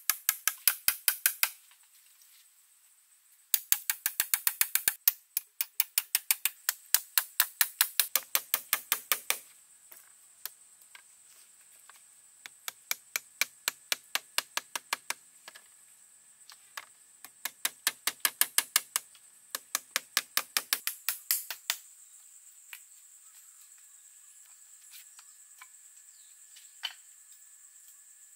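Rapid, even knocking, about five sharp strikes a second, in runs of a few seconds with short pauses between. Under it, a steady high chirring of insects.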